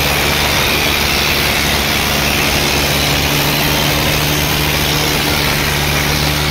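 Diesel tractor engines of a Swaraj 855 and a Sonalika idling steadily. The two tractors are chained back to back, waiting for a tug-of-war pull.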